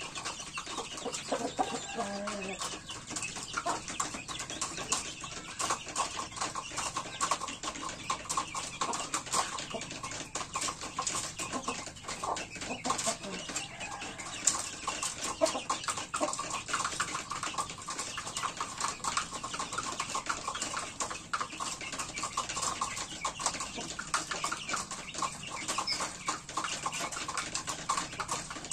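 Chickens clucking, a mother hen with her chicks, over a dense, continuous run of short clicking sounds.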